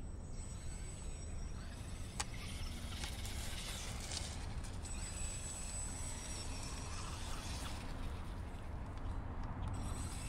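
Hosim 1:10 brushless RC truck driving on grass: a thin high whine from its brushless motor that comes and goes, with rustling from the tyres in the grass and a sharp click about 2 seconds in, over a steady low rumble.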